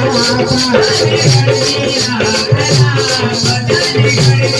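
Adivasi folk dance music: a rattle keeps a fast, steady beat over repeated low drum notes and a wavering melody.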